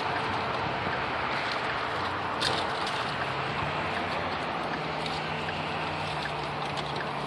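A vehicle engine running steadily with a low hum under steady road-noise hiss, and a sharp click about two and a half seconds in.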